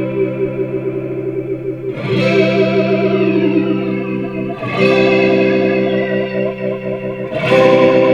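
Guitar played through a Chase Bliss Spectre analog flanger set for a Leslie-style rotary sound with negative polarity; each sustained strum rings with a wavering, swirling modulation. New strums come about two seconds in, near the middle, and near the end.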